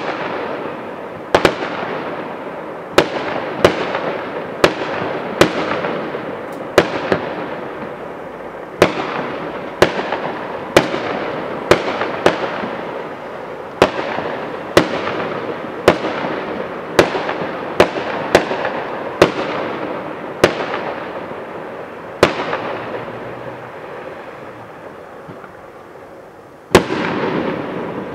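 Aerial firework shells bursting in quick succession, a sharp bang roughly every second, each trailing off before the next. Near the end the bangs pause for a few seconds, then one more loud burst goes off.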